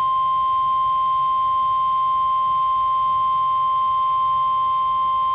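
NOAA Weather Radio 1050 Hz warning alarm tone: one loud, steady, unbroken tone that alerts listeners to an emergency warning about to be read.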